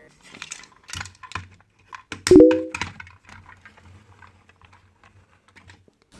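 Light clicks and clatters of small plastic toy pieces being handled, with a short squeak about two seconds in and fainter ticks after.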